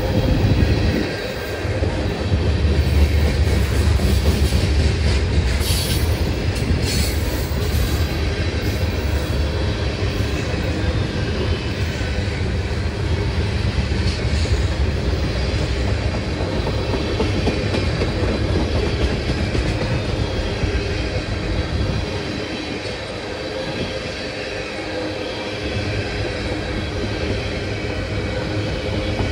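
Freight cars of a long CN manifest train rolling past, with a steady rumble and the clickety-clack of wheels over the rail. A few brief high squeals come from the wheels about six to seven seconds in.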